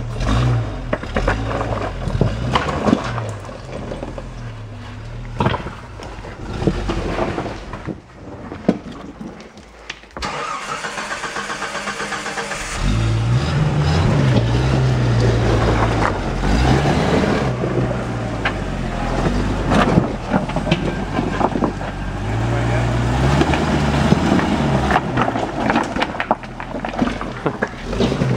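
Jeep Wrangler's engine working in low gear, its pitch rising and falling as it is throttled up and eased off while the Jeep crawls over boulders, with scattered knocks of tyres and underbody on rock. The engine drops away for a few seconds about a third of the way in, then comes back stronger.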